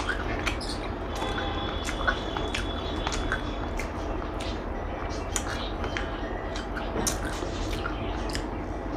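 Eating sounds: scattered small wet clicks and squishes of chewing and handling food, over a steady background noise.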